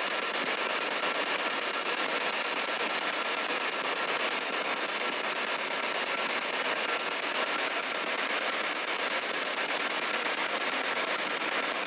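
Spirit box sweeping through radio stations, giving a steady rush of static with a faint thin tone running through it.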